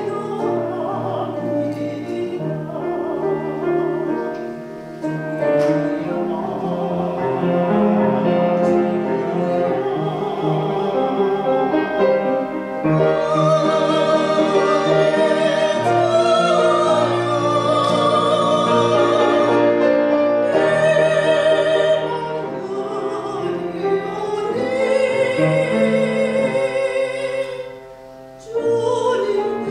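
Soprano singing a Korean art song in operatic style with vibrato, accompanied by piano and cello. The voice swells on long held notes through the middle and breaks off briefly near the end before the next phrase.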